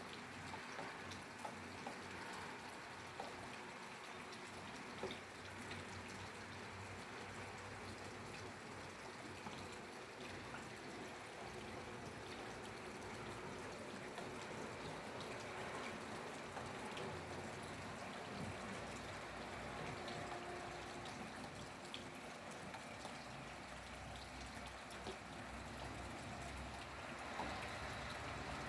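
Rain falling steadily, an even hiss with scattered single drops ticking through it.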